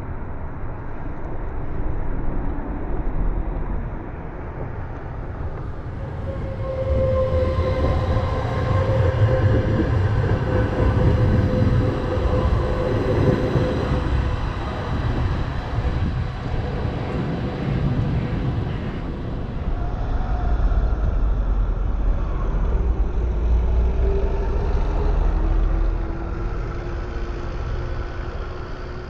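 Tram running, with a low rumble and a steady motor whine setting in about seven seconds in, then a rising whine near the end.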